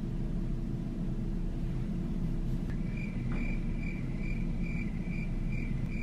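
Crickets chirping in a steady pulsed rhythm, about two chirps a second, starting about halfway in over a low steady rumble. It is the stock awkward-silence sound effect after an unanswered question.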